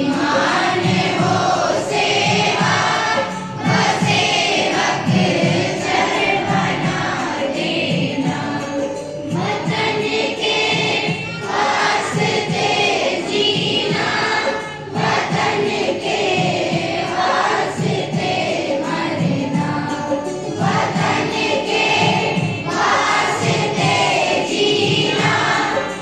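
School students singing a Hindi morning prayer together as a choir, in long sung lines with brief pauses between them.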